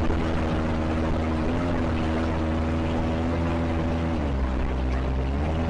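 Kawasaki ZX-25R's 250 cc inline-four engine running at a fairly steady engine speed. Its pitch rises a little about a second and a half in, drops back about four seconds in, and starts climbing again near the end.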